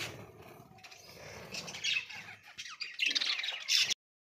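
A group of small caged pet parrots chirping and squawking in short, overlapping calls. The sound cuts off abruptly about four seconds in.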